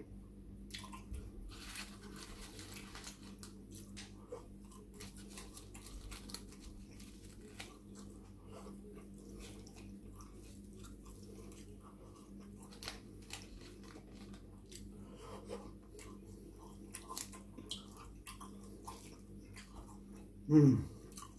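A person chewing chicken doner kebab close to the microphone, with many small mouth clicks. Near the end there is a short hummed "mmm" that falls in pitch.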